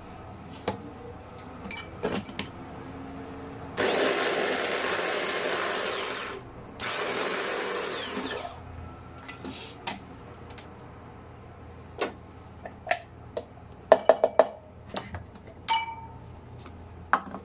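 Electric mini food chopper running in two pulses, about two and a half seconds and then two seconds, chopping red onion; the motor winds down at the end of the second pulse. Afterwards a string of sharp clicks and knocks as the chopper bowl and lid are handled.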